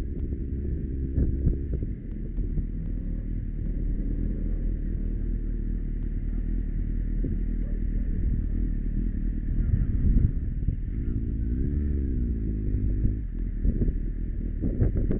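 Kawasaki Z750S inline-four motorcycle engine running while riding, its pitch rising and falling a few times as the throttle changes, with wind rumbling on the microphone.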